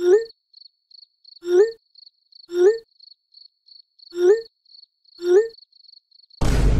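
Crickets-chirping sound effect: a rapid, steady high trill with a lower rising chirp about once a second. A loud noisy burst cuts in near the end.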